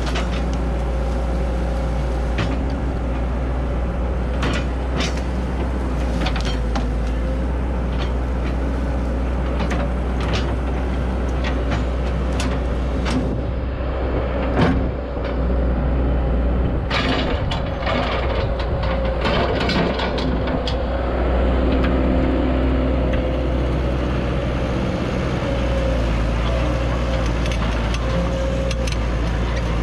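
Cat E120B excavator's diesel engine running steadily, with frequent sharp metallic clanks and knocks from the working machine, thickest in the middle stretch.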